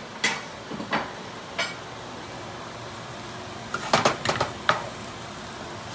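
Utensil knocking and scraping against a frying pan as Brussels sprouts and bacon are tossed, over steady sizzling. A few single knocks come early, then a quick cluster about four seconds in.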